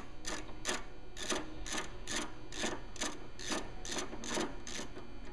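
Ratchet wrench clicking in short bursts about twice a second as it turns a bolt on a motorcycle's rear passenger foot peg mount, stopping near the end.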